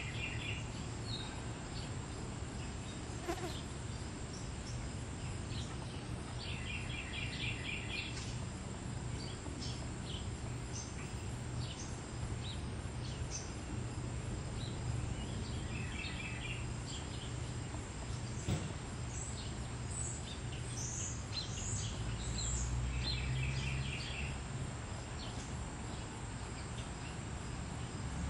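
Outdoor ambience: a short insect call of quick pulses, about a second and a half long, repeats four times at intervals of about seven to eight seconds over a steady low rumble, with scattered faint high chirps.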